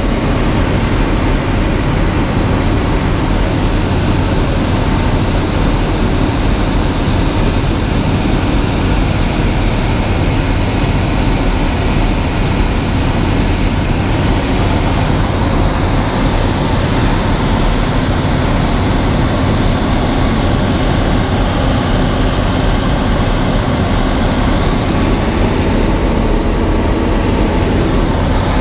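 Ultralight aircraft's engine and propeller droning steadily, heard inside the cockpit, over a constant rush of air.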